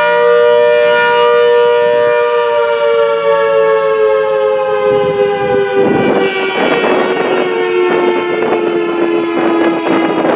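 ACA Hurricane 130 MKII outdoor warning siren sounding a loud chord of tones whose pitch slowly falls as it winds down. A rough, fluttering growl joins the tone about six seconds in.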